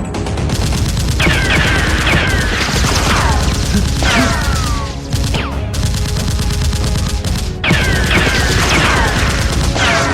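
Bursts of rapid automatic gunfire sound effects with short falling whistling tones, like bullet ricochets, and music underneath; the firing pauses about halfway through and picks up again.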